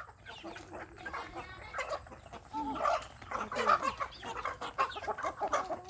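Chickens clucking: many short, overlapping calls from a flock, busy throughout.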